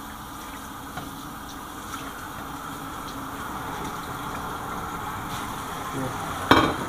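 Kitchen tap running steadily into the sink while a plate is washed, the water noise growing slowly louder, with faint ticks and one sharp clack of dishware near the end.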